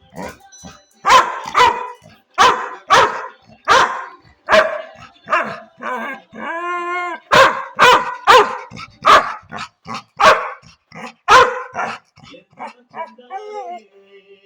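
Labrador retriever barking over and over in a quick string, broken once about halfway through by a drawn-out howling note about a second long, with quieter yips near the end.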